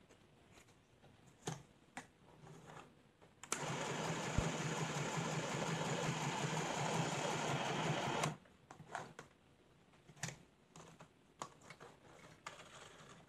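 CMD 12-stitch mini household sewing machine stitching through denim. It runs in one steady burst of about five seconds, starting about three and a half seconds in and stopping abruptly. A few light clicks come before and after it.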